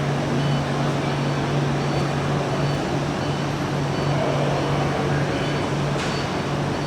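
Steady low hum with a constant rushing noise from running machinery, with faint short high beeps now and then.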